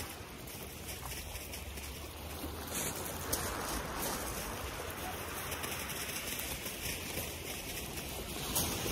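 Small sea waves washing onto a shingle beach: a steady hiss of water, swelling and easing gently.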